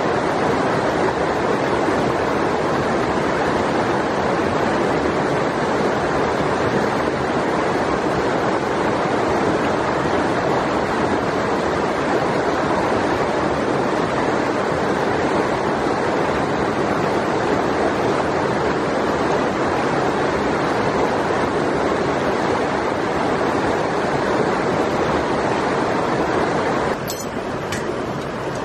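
A river's flowing water as a steady, unbroken rush, which drops in level near the end.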